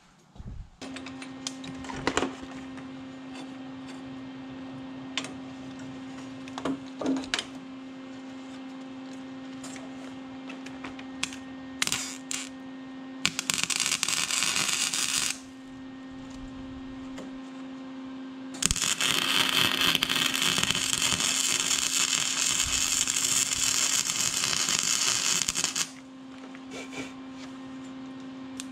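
Metal fabrication on a tractor seat bracket: a steady hum with scattered metal clanks, then two stretches of harsh, hissing tool noise, one of about two seconds and a later one of about seven seconds.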